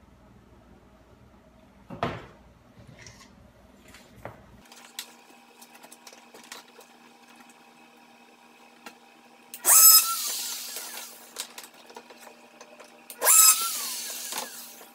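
A small high-speed power tool, such as a rotary cutting tool, run in two short bursts about three seconds apart, each one dying away with a falling whine as the motor spins down. Before the bursts, light clicks and knocks of plastic being handled.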